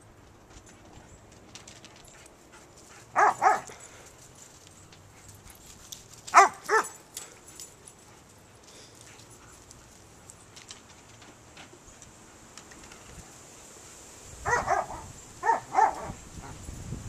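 Dog barking in play: two quick barks about three seconds in, two more a few seconds later, and a run of about four short barks near the end.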